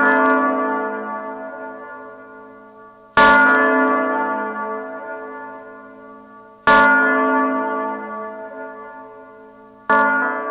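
A bell tolling slowly, struck about every three and a half seconds, each stroke ringing out and fading away before the next.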